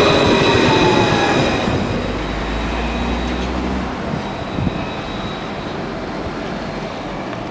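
An Alstom Citadis 302 tram pulling into the stop close by, its electric drive whining with a few steady high tones and one tone falling in pitch as it slows, loudest in the first two seconds. After that comes a fainter, steady running noise of a tram passing farther off.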